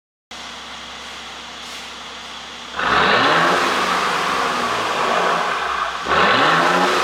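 Mercedes-Benz E400 Cabriolet's twin-turbo V6 idling, then revved twice about three seconds apart, each rev climbing and then settling back. The engine runs an aftermarket ECU tune meant to give exhaust pops.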